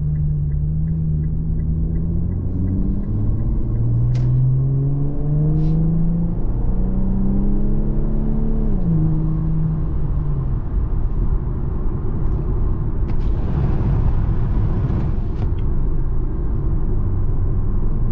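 Infiniti Q50S twin-turbo V6 pulling hard through the gears, its engine note climbing and dropping back at each upshift, then settling to a steady cruise. A rushing hiss lasts a couple of seconds about two-thirds of the way through.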